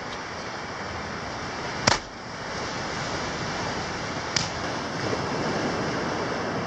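Steady wash of ocean surf, with a sharp click about two seconds in and a fainter click a little past four seconds.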